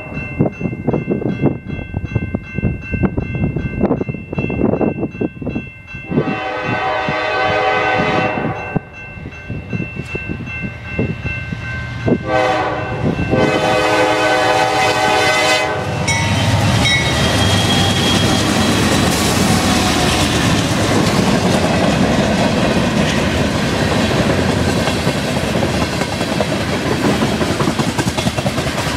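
Norfolk Southern freight train approaching a grade crossing, its locomotive horn sounding a long blast about six seconds in, a short one near twelve seconds and another long one ending around sixteen seconds, over the steady ringing of the crossing bell. From then on the locomotives and freight cars pass close by, a loud, steady rumble of wheels on the rails.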